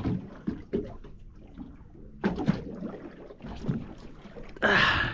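Small fishing boat at rest on a choppy sea: water slapping and lapping against the hull, with scattered knocks of gear and a louder rush of noise near the end.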